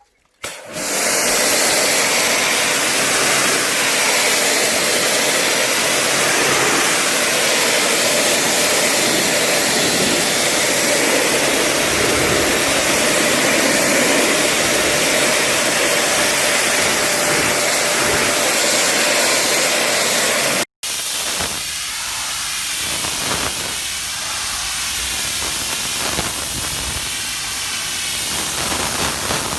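Pressure washer spraying a jet of water onto a surface: a loud, steady hiss. It cuts out for an instant about two-thirds through, then spraying resumes slightly quieter.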